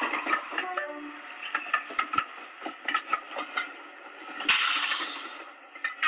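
Intro effects of a stage performance video: scattered clicks and knocks, then about four and a half seconds in a sudden hissing swell that fades away just before the song's music starts.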